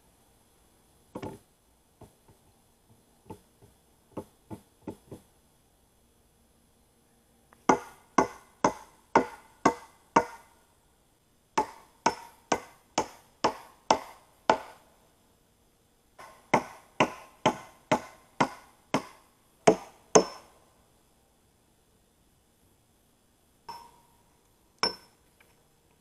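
A hammer pounding a log into the frame in three runs of sharp blows, about two a second, with short pauses between them. Each blow rings briefly. A few lighter wooden knocks come before the runs, and two single blows near the end.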